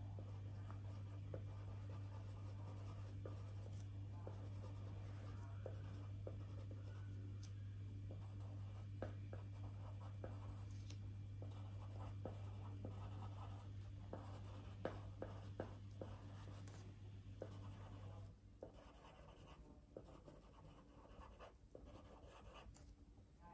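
Drawing tool scratching and tapping on paper in short, irregular strokes as a tree drawing is shaded in, over a steady low hum that stops about eighteen seconds in.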